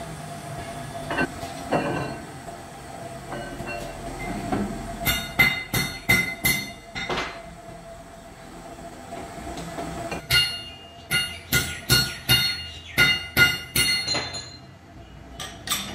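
Sharp, ringing metal-on-metal knocks as a steel bar strikes a clutch pressure plate clamped in a lathe's four-jaw chuck: a quick run of about six blows a third of the way in, then a longer run of about eight.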